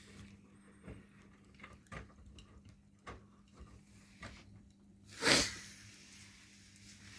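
Miele washing machine running between the main-wash spin and the first rinse: a steady low hum with soft knocks about once a second, and a brief louder whoosh about five seconds in.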